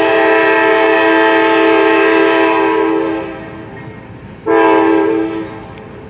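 Nathan K5LA five-chime air horn on a Norfolk Southern Dash 9-40C locomotive sounding a steady chord: a long blast that fades out about three seconds in, then a short blast about a second and a half later, part of the horn signal for a grade crossing.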